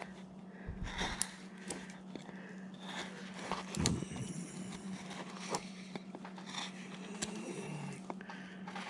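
A hand carving gouge taking short paring cuts in wood while a figure is roughed out, heard as faint scrapes and scattered small clicks. A steady low hum runs underneath.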